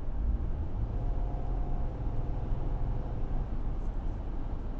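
Steady low road and engine rumble inside a moving minivan's cabin.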